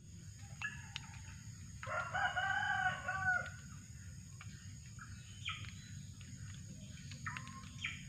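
A rooster crows once, a drawn-out call of about a second and a half starting about two seconds in. Short, sharp bird chirps sound around it, a few seconds before and after.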